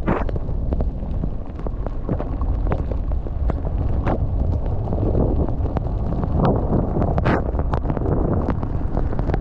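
Wind buffeting the microphone as a low steady rumble while a snowboard rides through powder, with short hissing scrapes of snow now and then, the loudest about four and seven seconds in.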